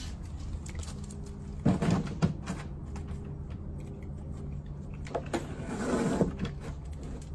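Knocks and scuffs of a dog's paws on a raised dog cot: a cluster of sharp knocks about two seconds in, then scuffing and shuffling around five to six seconds in. A steady low machine-like hum underneath.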